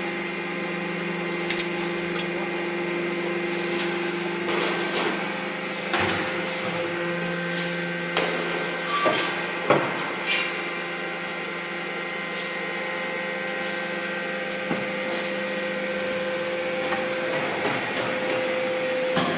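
Hydraulic baler running with a steady hum, with knocks and clatter for a few seconds in the middle.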